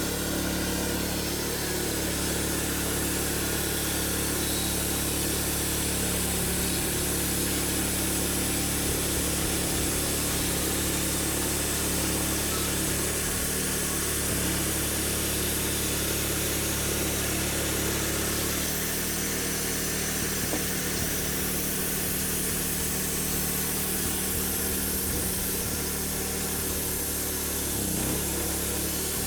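Sawmill's engine running steadily while oak is cut; about two-thirds of the way through, its low note changes and drops off.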